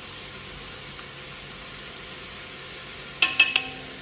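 Lamb neck pieces sizzling gently in ghee in a pot, steady and low. About three seconds in, three or four sharp ringing clinks of a metal spoon.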